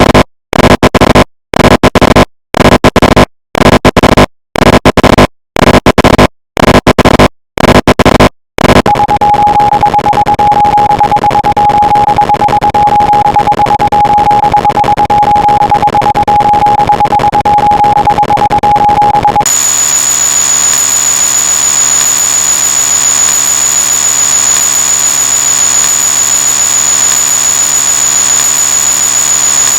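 A loud cacophony of stacked sound effects: at first short bursts separated by brief gaps, then a continuous dense wall of noise carrying a steady tone, which about two-thirds of the way in turns into a denser noise with a high steady whine.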